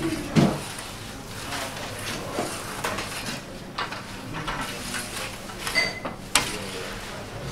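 Metal pizza peel scraping and clinking on the stone floor of a wood-fired oven as pizzas are shifted and turned, with a brief ringing clink and then a sharp knock near the end.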